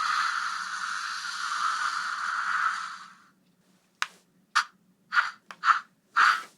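Electronic sound effects played through the small speaker of a Bandai Aurachanger Memorial Edition henshin brace toy. A hissing whoosh fades out about three seconds in, followed after a brief pause by a run of about six short noisy bursts.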